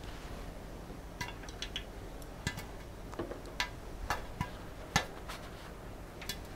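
Popcorn kernels just starting to pop in hot bacon grease inside a lidded cast-iron Dutch oven: about ten sharp, separate pops at irregular intervals, over a faint steady hum.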